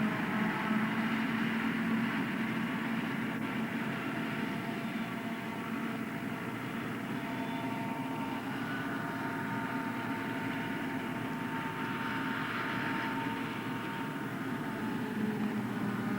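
John Deere self-propelled forage harvester working in maize, its engine and cutting gear running steadily with a low hum and a fainter high whine over it.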